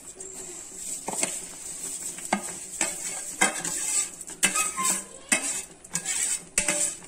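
A series of irregular clinks and knocks of a spoon and bowl against a steel pot as fried vermicelli is tipped into hot milk and stirred.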